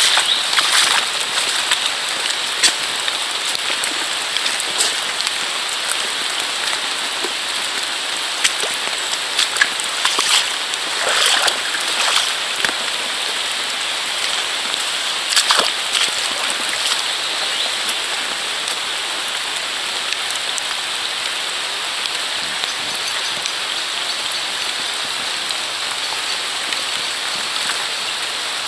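Steady rain falling, an even hiss of drops hitting the ground and puddles. A few brief, louder noises stand out close by, about a third to halfway through.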